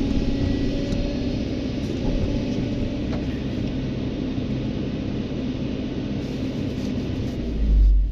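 Heavy diesel engine of earthmoving machinery running steadily with a deep rumble. A low surge swells briefly near the end.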